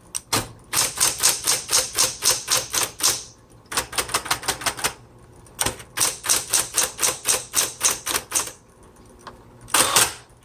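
Typing on a 1960s Smith-Corona Coronet Automatic electric typewriter: three quick runs of sharp key strikes, about six a second, with short pauses between them, and a longer, louder clatter near the end.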